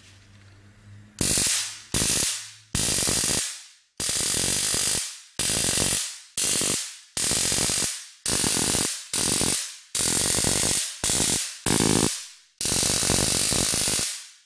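Flashlight stun gun (sold as 600,000-volt) sparking across its electrodes with a loud electric crackle, in about a dozen bursts from half a second to a second and a half long, each starting suddenly, the last and longest near the end.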